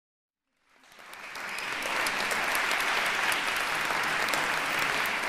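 Audience applauding, fading in from silence about half a second in and then holding steady.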